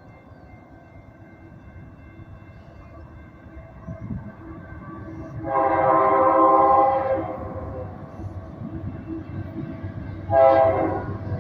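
GE Dash 9-44CW locomotive's air horn sounding one long blast about halfway through and then a short one near the end, over the low rumble of the approaching freight train.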